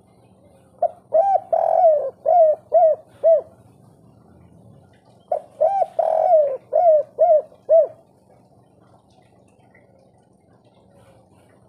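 Spotted dove cooing in its three-note 'kuk 3' song: two phrases a couple of seconds apart, each a run of low hooting coos with one longer note in the middle and ending in three short, evenly spaced 'kuk' notes.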